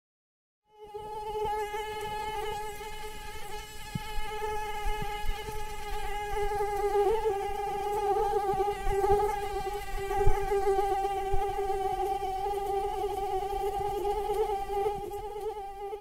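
Mosquito in flight: the steady, high-pitched whine of its wingbeats, rich in overtones and wavering slightly in pitch, starting about a second in.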